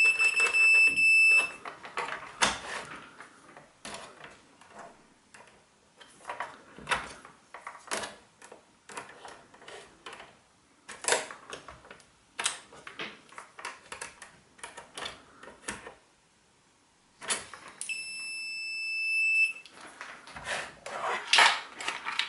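Digital multimeter on its continuity setting giving a steady high beep for about a second and a half at the start and again about 18 seconds in, each beep signalling a closed circuit between the probes. Between the beeps come light clicks and rustling of the test probes and the shower's plastic case being handled, louder near the end.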